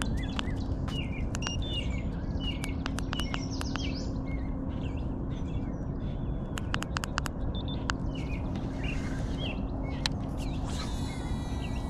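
Small birds chirping again and again over a steady low hum from the kayak's bow-mounted electric trolling motor, with a few faint clicks.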